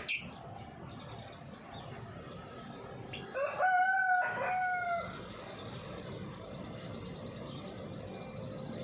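A rooster crows once, starting about three seconds in and lasting under two seconds, with a rising start and a long held note. Short high bird chirps sound just before it, the loudest right at the start.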